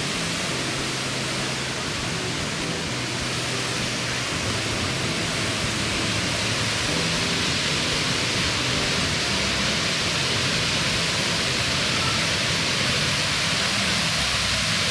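Waterfall: a steady, dense rush of falling water, growing slightly louder over the second half.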